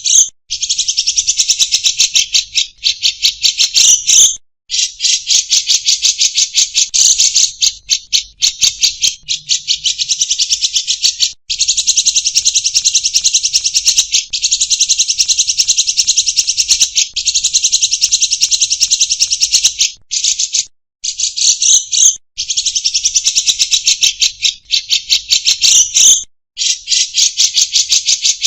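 Caged songbirds singing nonstop, gacor, in a loud, dense, rapid buzzing trill, long runs of several seconds broken by brief pauses.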